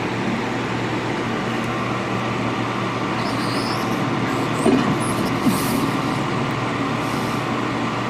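Hot-air rework station blowing a steady stream of air, with the low hum of its blower, while heating an iPhone 6 logic board's metal shield frame to melt the solder. A couple of light clicks of tweezers on the metal frame come about halfway through.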